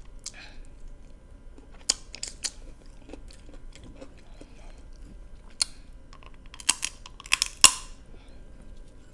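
Close-miked eating of crab legs: soft chewing and mouth sounds with scattered sharp clicks of shell. About seven seconds in comes a quick run of louder cracks and crunches as the crab shell is bitten.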